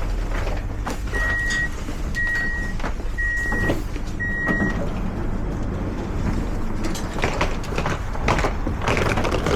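Steady rumble of vehicle traffic, with four short high electronic beeps about once a second in the first half.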